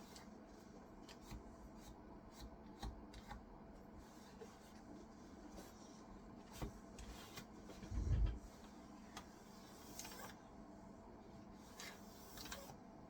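Faint scattered clicks and short rubbing and scraping of keyboard parts being handled and scrubbed clean by hand, with one louder dull thump about eight seconds in.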